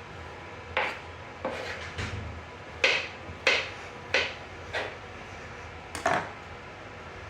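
Kitchenware clattering: about eight sharp knocks and clinks of utensils and dishes, irregularly spaced, over a steady low hum.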